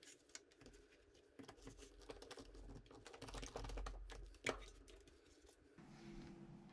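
Faint clicks and taps of plastic being handled: a replacement PC power-supply fan and its plastic air deflector pressed and set in place, with one sharper click about four and a half seconds in.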